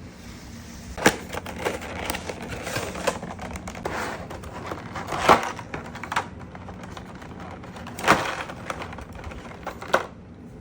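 Action figure packaging being handled and opened: a string of sharp clicks, taps and crinkles over a light rustle, with louder knocks about a second in, around five seconds in, and near eight and ten seconds.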